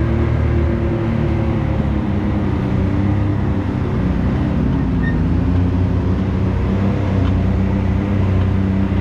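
Can-Am Maverick X3's turbocharged three-cylinder engine running at low, fairly steady revs, its pitch rising and falling slightly as the side-by-side climbs a rough trail.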